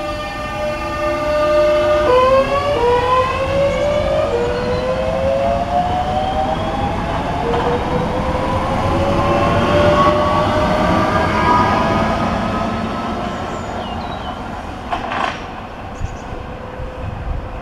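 Southeastern Class 375 Electrostar electric multiple unit pulling away. Its traction equipment whines in several tones at once: the pitch steps down about two seconds in, then climbs steadily as the train accelerates, and fades as it draws off. A brief sharp noise comes about fifteen seconds in.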